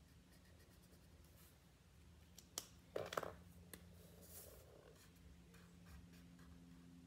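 Faint marker strokes scratching on paper, with a short cluster of sharp knocks and clatter about three seconds in.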